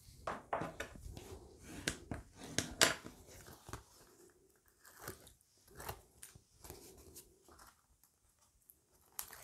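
Crisp crackling and rustling of cardstock and double-sided tape being handled by fingers on a tabletop, a quick run of sharp crackles in the first three seconds, then sparser, fainter rustles.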